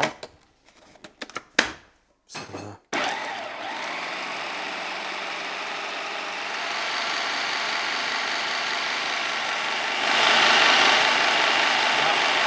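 A few plastic clicks and knocks as the food processor's lid is fitted, then the electric food processor starts about three seconds in and runs steadily, chopping fresh herbs and vegetables. The motor noise grows louder about ten seconds in.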